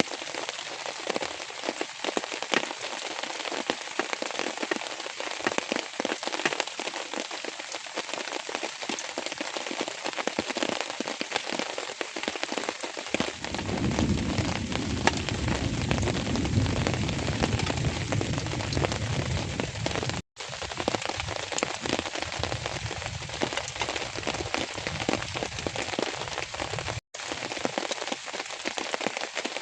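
Rain falling steadily, many separate drops pattering on a surface. A low rumble runs under it for several seconds in the middle, and the sound cuts out for an instant twice near the end.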